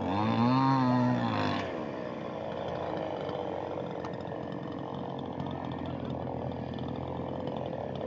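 Two-stroke petrol chainsaw at high revs, its pitch dipping and climbing again for the first second and a half. It then drops to a quieter, rougher steady running.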